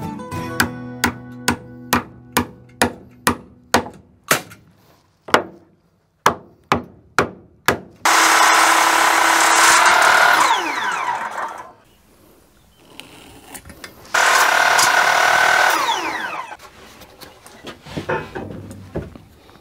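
About a dozen sharp knocks at roughly two a second, then a handheld circular saw cutting through a board twice, each cut lasting about two seconds, with the blade whining down in pitch after each cut. A few light wooden knocks near the end.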